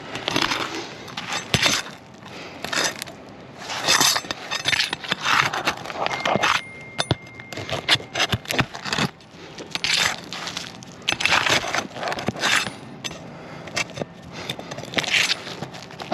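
A pry bar scraping under asphalt shingles and breaking them loose from their sealant strips, in a run of separate scrapes, crackles and sharp clicks. The shingles are weathered and too stiff to bend without creasing or tearing.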